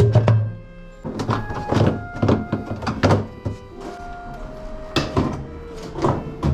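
Background music: a melody of held notes over irregular percussive knocks.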